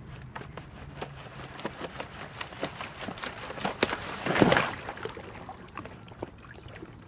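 Thin ice over a shallow stream breaking: scattered small sharp cracks and clicks, with a louder crunch of ice giving way about four seconds in.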